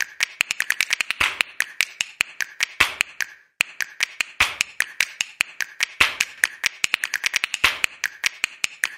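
A rapid run of sharp clicks or snaps, about six a second, with a short break about three and a half seconds in.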